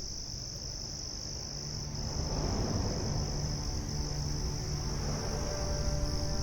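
Insects chirring in a steady, unbroken high-pitched drone. Soft music with low held notes comes in underneath about two seconds in, and a higher held note joins near the end.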